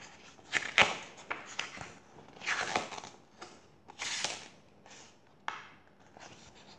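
Pages of a paperback picture book being turned by hand: several papery rustles and swishes with sharp little snaps of the paper.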